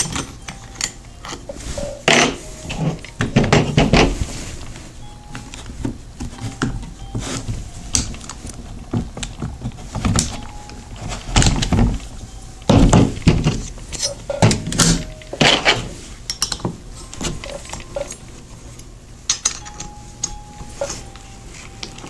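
Irregular clicks, clacks and knocks of hard plastic and metal parts as a Ryobi cordless oscillating multi-tool's blade and head are handled and fitted, with parts set down on a table. The tool's motor does not run.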